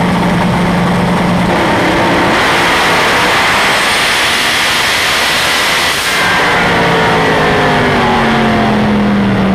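Turbocharged Pro Extreme C7 Corvette drag car heard from inside the cockpit during a full-throttle pass. The engine holds a steady note on the line, then launches about two seconds in at full power, with a high whistle rising in pitch mid-run. About six seconds in the driver lifts, and the engine note falls steadily as the car slows.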